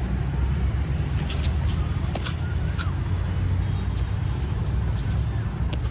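Steady low rumble of outdoor background noise, with a few faint clicks and brief faint pitched sounds over it.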